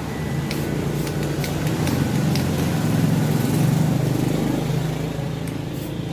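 LG refrigerator compressor running, a steady low electric hum that swells slightly mid-way, with a few faint clicks.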